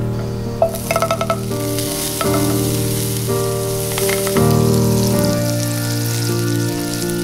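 Butter sizzling as it melts in a nonstick frying pan, a steady hiss that starts about half a second in, over background music.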